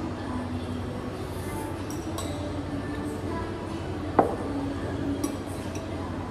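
Metal forks clinking and scraping against ceramic plates and a glass while eating, with one sharp, ringing clink about four seconds in and a lighter one a second later, over a steady low background hum.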